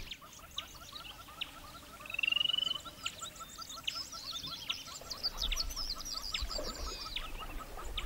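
Wild animal chorus: a steady, fast run of identical chirps repeats several times a second under scattered high bird chirps and whistles. About two seconds in, a louder rapid trill sounds for about half a second.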